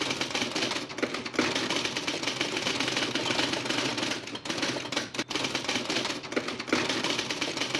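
Typewriter sound effect: rapid, continuous clacking of keys, with a few short breaks.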